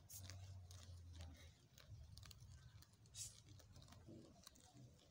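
Near silence with faint scattered clicks and rustles: warthogs cropping and tearing short grass as they graze on their knees. A faint low hum sits under the first second and a half.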